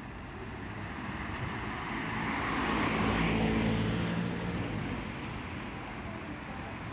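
A road vehicle passing by, its engine and tyre noise swelling to its loudest about three seconds in and then fading.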